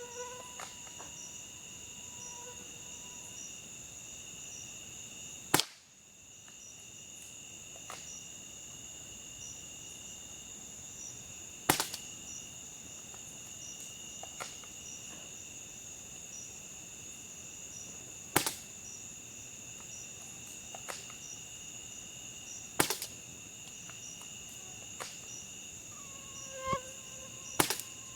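Five sharp shots from a Well MB06 spring-powered bolt-action airsoft sniper rifle, spaced about five to six seconds apart, with fainter clicks between them. Crickets chirp steadily over the whole of it.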